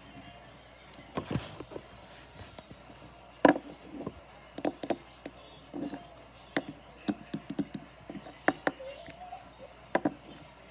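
Small hard objects being handled and set down, making irregular sharp taps and clicks, the loudest about three and a half seconds in.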